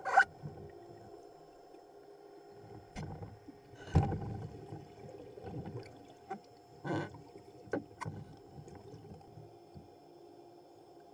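Underwater sound through a camera housing: a steady low hum under several bursts of gurgling from a scuba diver's exhaled bubbles, with a few sharp knocks. The loudest bursts come about four and seven seconds in.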